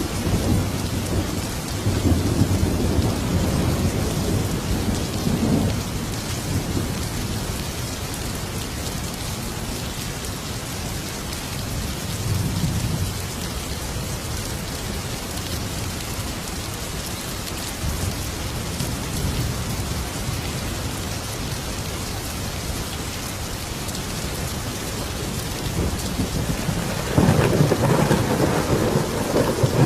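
Thunderstorm: steady heavy rain with rolling thunder, a long rumble early on...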